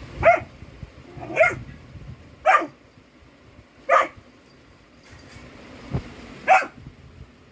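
Golden retriever puppy giving five short, high yaps spread over several seconds, barking warily at an unfamiliar object. There is a single knock just before the last bark.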